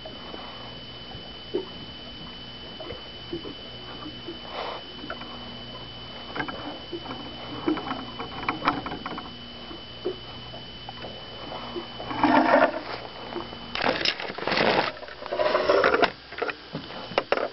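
Handling noises in a fishing boat: scattered knocks, clicks and rustling over a faint steady hum, then louder bumping and sloshing from about twelve seconds in as a landed walleye is handled.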